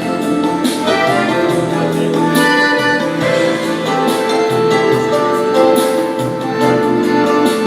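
Instrumental music: a melody of held notes over a full accompaniment, playing steadily without a break.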